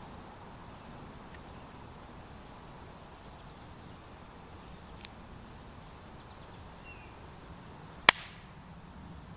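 Faint steady outdoor background noise with a single sharp, loud click about eight seconds in, a softer tick about five seconds in, and a short faint falling chirp just before the loud click.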